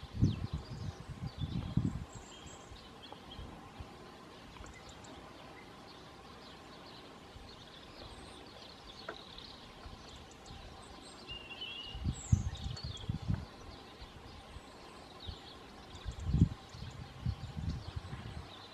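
Outdoor ambience at a busy honeybee hive entrance: a faint steady hum, with small birds chirping now and then. Bursts of low rumble hit the microphone in the first two seconds, about twelve seconds in, and again a few seconds later.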